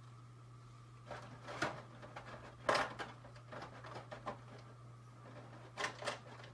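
Small plastic toy accessories being handled: a few light clicks and rustles about a second in, around three seconds in, and again near the end, over a steady low hum.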